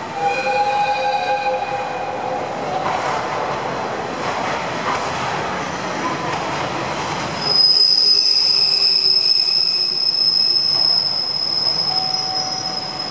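JR Hokkaido 731 series electric multiple unit running slowly through the station, its wheels squealing. A lower squeal fades out in the first couple of seconds, and about halfway through a loud, high, steady wheel squeal starts and holds.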